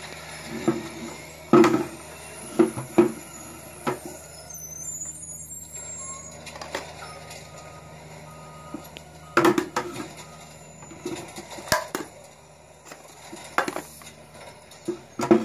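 Metal kitchen tongs and small plastic toy trash carts clacking and knocking against each other and a concrete floor. The sharp knocks come in scattered groups over a steady low hum.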